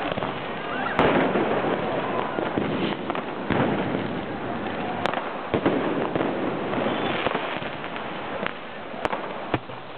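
Fireworks and firecrackers going off amid a crowd, with crowd voices throughout. Sharp bangs come about a second in, around five seconds in, and twice near the end.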